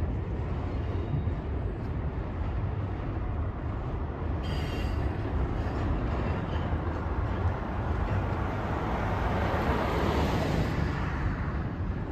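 Double-stack intermodal cars of a freight train rolling slowly over a steel girder bridge overhead: a steady rumble of wheels on the rails, swelling louder about ten seconds in.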